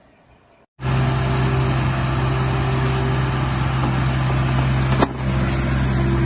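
An engine running steadily at constant speed, starting abruptly about a second in, with a single sharp knock about five seconds in.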